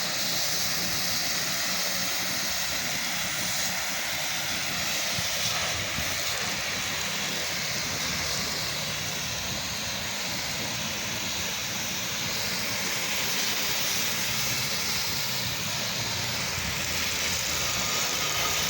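Pressure washer's engine running steadily, with the hiss of the spray as a bleach-and-surfactant mix is applied downstream to the siding.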